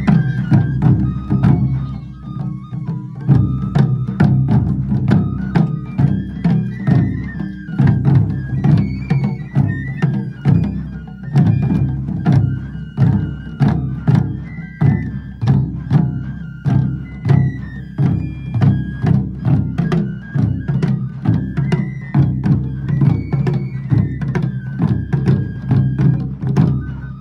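Taiko drums beating a fast, dense rhythm, with a high melody of held, stepped notes playing over them.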